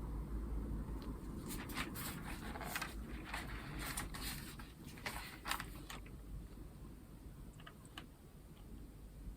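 Packaging being handled during an unboxing: a run of crinkling, scraping handling noises with sharp clicks that starts about a second and a half in and stops around six seconds, followed by a few faint ticks.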